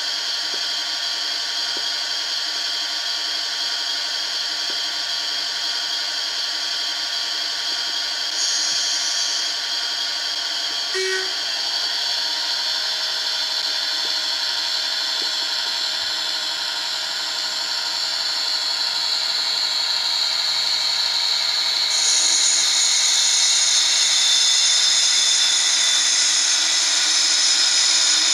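Sound decoder in a Bachmann OO-gauge Class 57 model diesel locomotive playing its engine sound through the model's small speaker: a steady diesel idle, then the engine note builds from about two-thirds of the way in and steps up in loudness near the end as the model pulls away.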